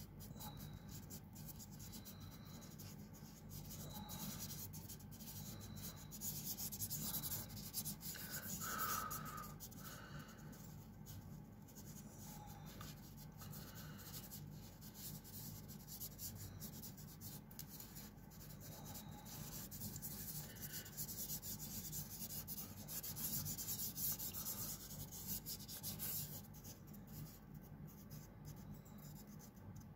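Fingertips rubbing across a pastel drawing on paper to blend the colour: a faint, scratchy rubbing that swells and fades in long strokes. It is loudest about eight seconds in and again around twenty-four seconds in, over a low steady hum.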